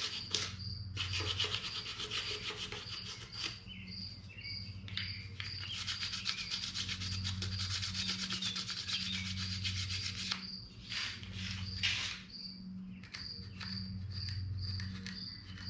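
Rapid back-and-forth strokes of hand sanding old gasket material off the oil pan gasket surface of a Chevy 350 small-block, in steady runs with two short pauses. A faint high chirp repeats at an even pace behind it.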